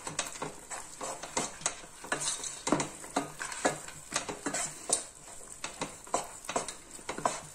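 Slotted wooden spatula stirring and scraping thick, sticky banana halwa with cashews around a nonstick pan, in quick, uneven strokes. The halwa has reached its finished stage, pulling away from the pan as a single mass.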